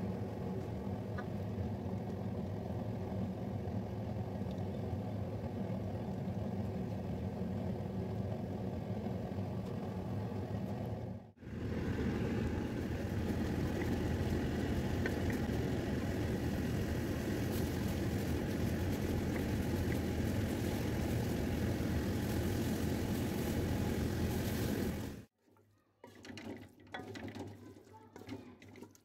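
Steady machine-like hum with a hiss in a kitchen while masala fries in a pot on a gas stove. It breaks off briefly about eleven seconds in, comes back louder and brighter, then drops away a few seconds before the end to faint scrapes and knocks.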